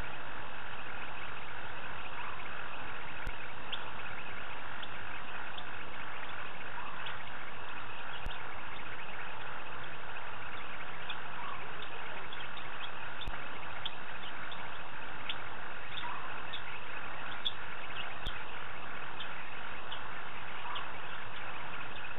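Steady night chorus of insects in the bush, with many short high chirps, and a short rising call repeating about every four to five seconds.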